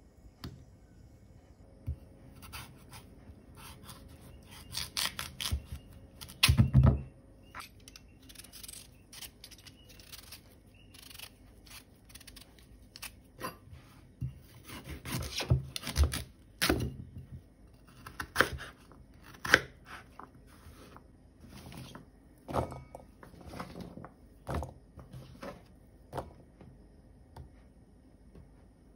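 A kitchen knife cutting through raw sweet potato and knocking on a wooden chopping board, in irregular cuts, taps and scrapes, with a cluster of louder knocks about a quarter of the way in.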